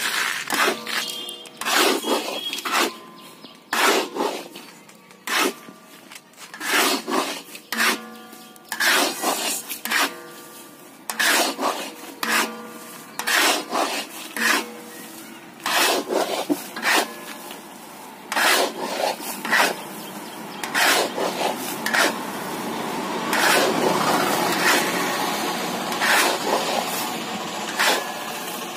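Metal scoop scraping through hot sand against the bottom of a large iron kadhai as fryums are tossed and roasted, in repeated rasping strokes a little over one a second. About two-thirds of the way through it turns into a continuous scraping rustle as the sand is stirred without pause.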